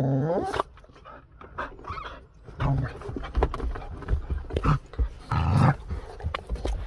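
Two dogs, a white pit bull and a brindle dog, play-fighting. There is a rising yowl at the start, a short growl about two and a half seconds in and a longer, louder growl about five and a half seconds in, with scuffling bumps between.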